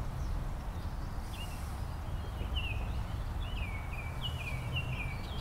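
Canada goose goslings peeping: short, high calls, each dipping slightly in pitch, starting about a second in and coming more often toward the end, over a low steady rumble.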